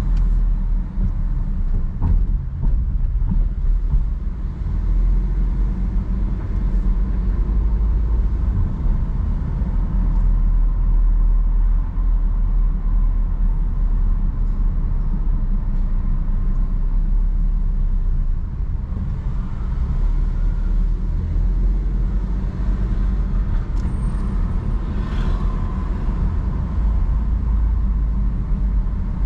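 Car driving at town speed: a steady low rumble of engine and tyre road noise.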